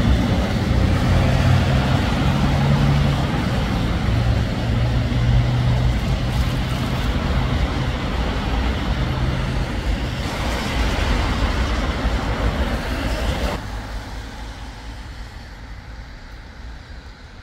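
Road traffic with a heavy vehicle's engine running close by, a steady low hum over the noise of passing traffic. About 13 seconds in the sound drops off abruptly, and quieter traffic noise fades after it.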